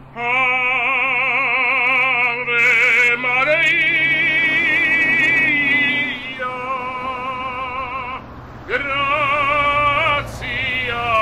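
A man singing opera: long held notes with wide vibrato, in several phrases broken by short breaths, with a clearer pause a little past the middle.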